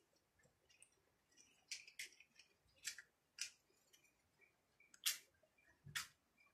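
Faint handling noise: about six short, scattered clicks and scrapes over near silence.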